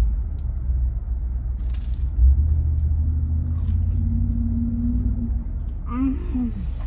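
Low, steady rumble of a car engine running.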